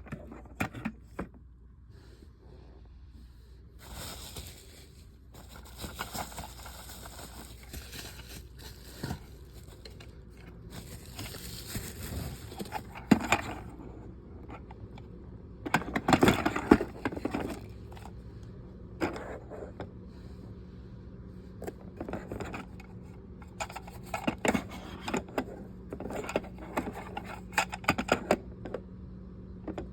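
Irregular scraping, rustling and clicking as toy train-set parts and their packaging are handled, with occasional sharper clicks and crackles. A faint steady hum joins about halfway through.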